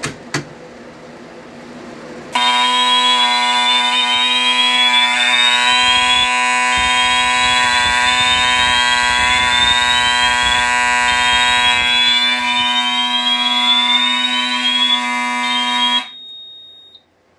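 Two sharp clicks, then about two seconds later a Simplex horn sounds a steady, very loud, scratchy alarm tone. Under it a Wheelock MT horn strobe on slow whoop makes faint repeated rising sweeps. Both horns cut off suddenly near the end when the alarm is silenced.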